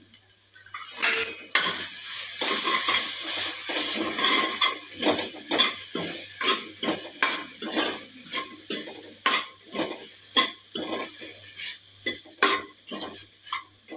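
Steel spoon scraping and clinking against a stainless steel kadai as crumbled soya chunks are stirred and mashed, in quick repeated strokes about two a second, starting about a second in.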